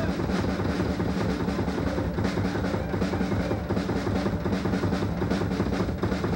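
Live drum kit played fast, with snare and tom rolls; the bass drum comes in with rapid strokes right at the start and keeps going under a steady held tone.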